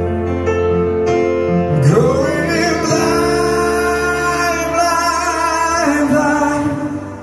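Male singer singing long held notes over piano accompaniment, performed live; the music drops off near the end.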